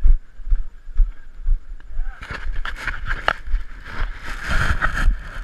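Footfalls of a racer moving along a muddy trail, a low thud about twice a second from each stride jolting the body-worn camera, with a stretch of sloshing, splashing noise from about two seconds in until near the end.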